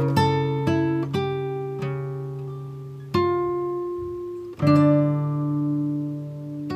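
Background music of plucked string notes: a quick run of notes, then two chords struck about three and four and a half seconds in, each left to ring and fade.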